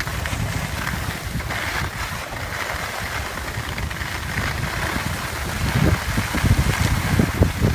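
Wind buffeting the microphone of a skier filming on the move, with the hiss of skis scraping across groomed snow through the turns. The wind rumble gets stronger near the end.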